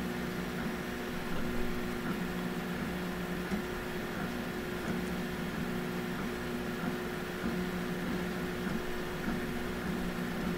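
Bad Robin open-source 3D printer printing: its stepper motors give a low whine in short tones that change pitch every half second or so as the print head moves, over the steady hiss of the hotend cooling fan.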